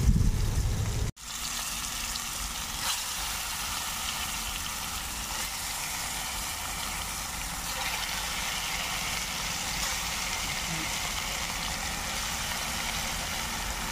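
Marinated fish pieces sizzling in hot oil in a steel bowl over a wood fire: a steady, even hiss. A louder, deeper first second cuts off suddenly.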